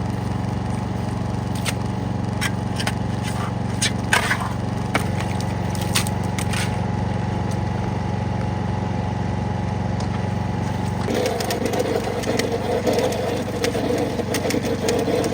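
An engine running steadily, with scattered sharp clicks and knocks over it. About eleven seconds in, a rougher, louder sound joins in.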